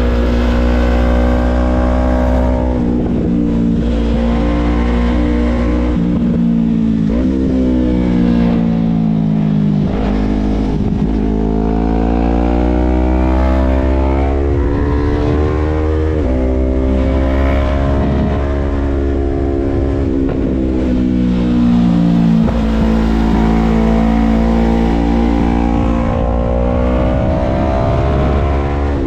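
Vehicle engine running under load, its pitch slowly climbing and then dropping back several times as the revs rise and the gears change, over a steady low rumble.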